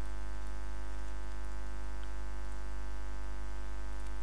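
Steady low electrical mains hum with a stack of even overtones, unchanging throughout, with a few faint ticks over it.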